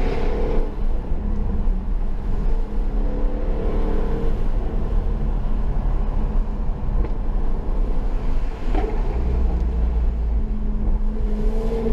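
Jaguar F-Type being driven, heard from inside the cabin: the engine note swells under throttle a couple of times over a steady low rumble of road and tyre noise.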